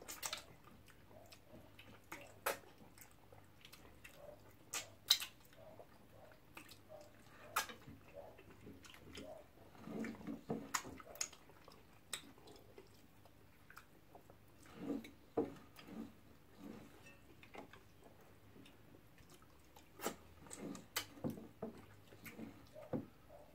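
Eating sounds: scattered wet lip smacks, mouth clicks and chewing as two people eat soup and pounded yam by hand and lick their fingers.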